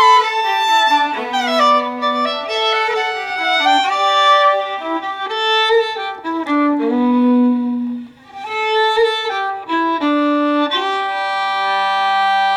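Background music: a fiddle playing a melody, settling on a long held note near the end.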